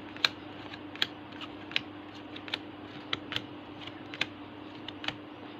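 Yu-Gi-Oh trading cards being flipped through one at a time by hand, about ten sharp card snaps at uneven intervals, over a steady low hum.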